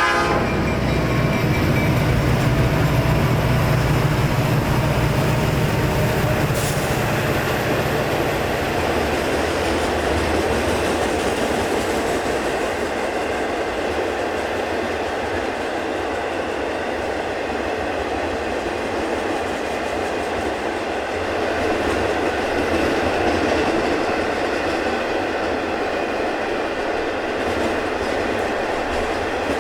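A freight train led by EMD diesel locomotives passing: the locomotives' engine drone is heard for the first nine seconds or so, then gives way to the steady clickety-clack and rolling noise of the cars going by.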